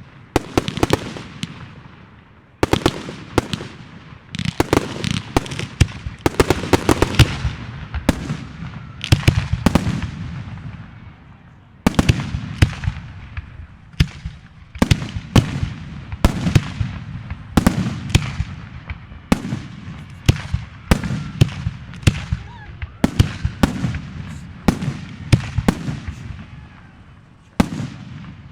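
Aerial fireworks bursting in rapid succession: sharp bangs, each followed by a fading crackle, coming in waves of several bursts with short lulls between.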